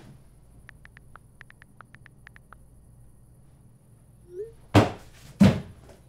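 Two loud thumps about two-thirds of a second apart near the end, after a quick run of about a dozen light, high ticks about a second in.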